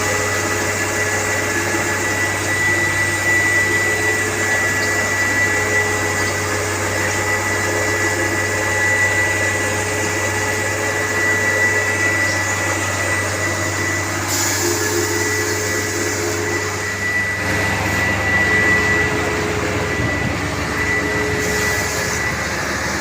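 Concrete plant machinery and a truck mixer running steadily: a low hum under a constant high whine. The noise changes briefly about two-thirds of the way through.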